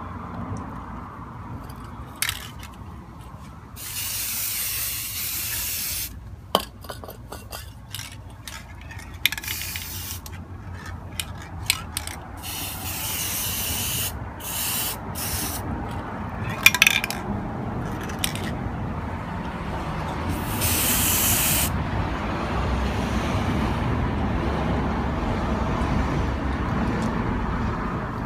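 Aerosol can of gold spray paint hissing in a series of bursts, some short puffs and several sprays of about two seconds, over a steady low rumble.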